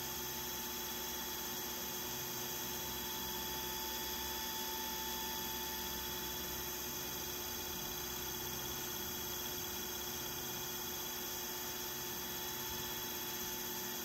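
Brushless hoverboard hub motor spinning a fan blade at high speed: a steady hum with several steady whining tones.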